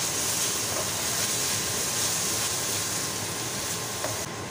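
Chopped onion and garlic sizzling in chili oil in a stainless steel skillet, a steady hiss, with a few light scrapes of the stirring spoon on the pan. The high part of the hiss drops away near the end.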